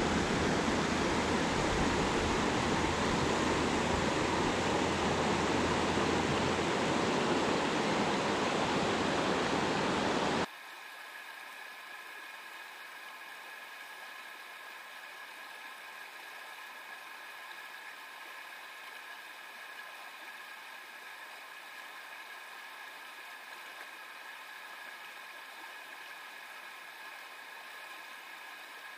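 Running water of a small stream. It is loud and close for the first ten seconds or so, then cuts off suddenly to a fainter, steady hiss of water.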